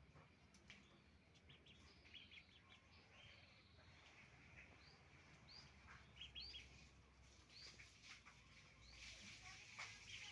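Chicken flock calling faintly: scattered short calls, then a series of about six short rising chirps, one roughly every three-quarters of a second, in the second half.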